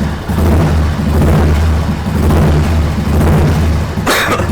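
2003 Royal Enfield Bullet's single-cylinder engine idling through an exhaust set up for bass, a steady, heavy low thump. A short sharp hiss cuts in near the end.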